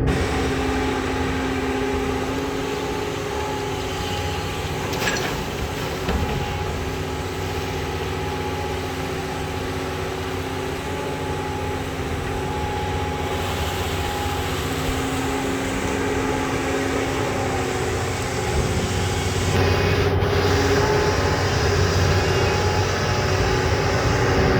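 Doosan long-reach excavator's diesel engine running steadily with a continuous hum while it digs; the sound changes character slightly about 20 seconds in.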